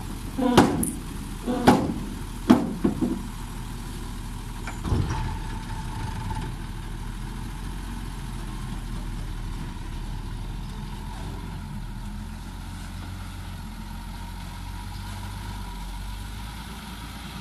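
Dump truck's engine running while its emptied bed lowers, with four loud metal bangs in the first three seconds and one more about five seconds in as the tailgate and bed come down. The engine then runs steadily as the truck moves off.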